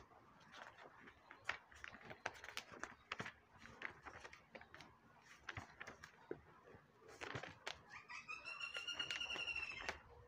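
Pages of a paperback textbook being turned and leafed through, with soft paper rustles and small clicks. About eight seconds in, a single pitched animal call is held for about two seconds, louder than the paper sounds.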